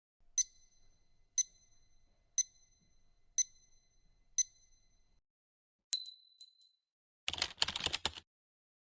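Five identical bright dings about one second apart, then a higher chime and a short noisy swish.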